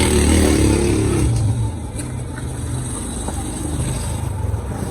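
A motor vehicle's engine running close by, loudest in the first second and a half and then easing to a steadier rumble as it moves off.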